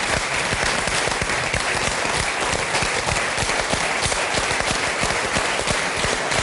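Audience applauding: dense, steady clapping from many hands at the close of a stage recitation.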